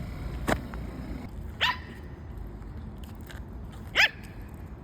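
A Pomeranian gives two short, high barks a couple of seconds apart, the second louder, after a sharp click. The barking is a fit of temper at not getting her way.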